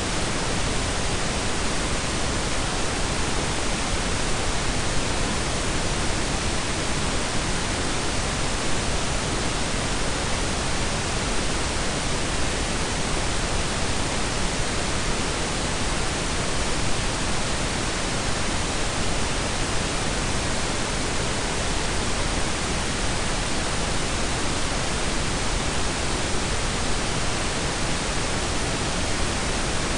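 Steady pink and brown noise blended together: a constant, even hiss with a deep rumble underneath. It does not change.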